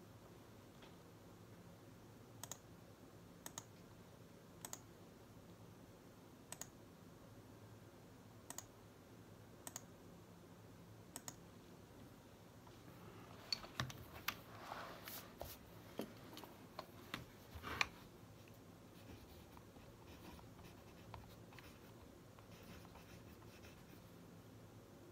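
Computer mouse clicking, a press-and-release pair every second or two. Then a few seconds of knocks and rustling, followed by faint pen scratching on notebook paper.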